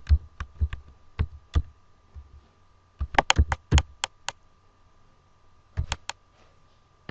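Keystrokes on a computer keyboard: sharp clicks typed in three short runs, one at the start, one about three seconds in and a brief one near the end.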